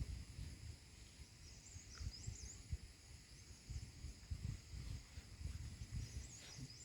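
Faint small-bird twittering in two short spells, quick wavering high chirps, over a low, irregular rumbling noise.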